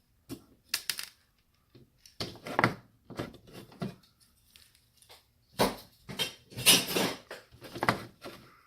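Small metal and plastic parts clattering and knocking as a scrap electronic device is taken apart by hand: irregular clinks and rattles, the loudest cluster about two-thirds of the way through.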